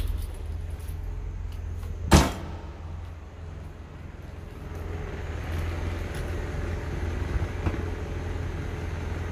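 Mazda 323's 1.5-litre engine idling steadily and smoothly, a low even hum that grows a little louder about halfway through. A single sharp clack sounds about two seconds in.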